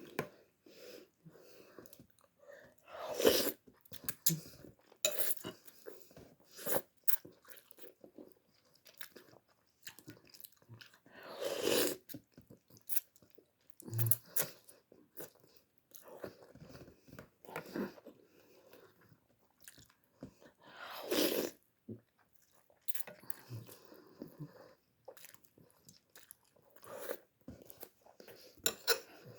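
A person chewing and biting on instant vermicelli noodles: many short, irregular eating sounds, with a few louder bursts about every nine seconds.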